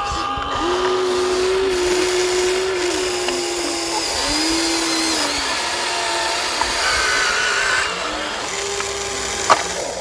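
Small electric motor and gearbox of a remote-control toy vehicle whining in short runs, starting and stopping several times with small shifts in pitch, and a sharp click near the end.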